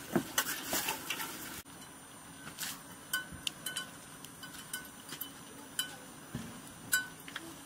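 Wood fire in a clay stove crackling under a lidded metal pan, with sparse light clicks and clinks, a few with a short ring, over a low steady hiss.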